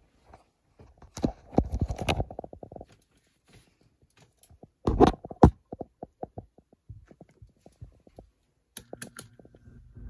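Handling clatter close to a box fan: a run of quick clicks, two loud knocks about five seconds in, then scattered clicks. Near the end the box fan's motor starts with a low steady hum.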